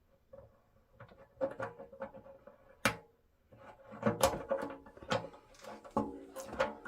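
Metal clicks, taps and light knocks as a motorcycle fuel petcock and its threaded nut are worked against a steel fuel tank while trying to get the threads started. The sharpest click comes about three seconds in, and a quicker run of clicks follows near the end.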